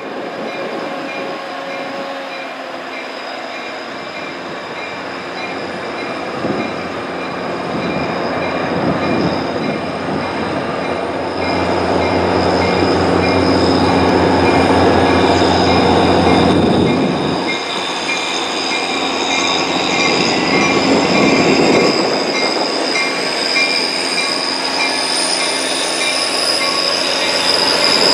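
Caltrain diesel-hauled commuter train pulling slowly into a station, its steel wheels squealing on the rails in several steady high tones over the rumble of the train. It gets louder as the train draws near.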